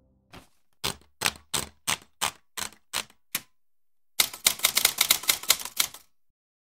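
Typewriter keystroke sound effect: eight single keystrokes about three a second, then, after a short pause, a quick run of rapid keystrokes that stops shortly before the end.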